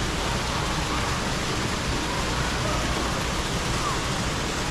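Steady rush of an indoor artificial waterfall splashing into a large aquarium pool, with faint voices under it.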